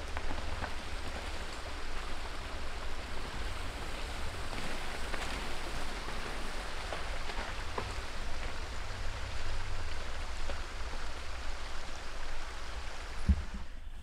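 Steady outdoor hiss of woodland surroundings over a low rumble of wind on the microphone, with a few faint ticks and one sharp knock near the end.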